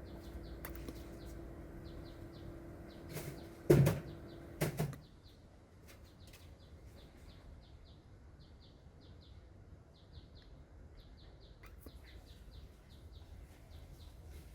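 Two sharp knocks a second apart, about four seconds in, like a door or lid. They come over a steady pitched hum that stops just after them. Quick, regular high chirps carry on through.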